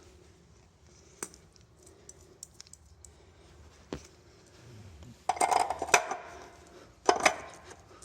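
Metal transmission parts or tools being handled and set down during disassembly of a CVT: a couple of single clicks, then two bursts of metallic clinking and rattling, the first longer, about a second apart.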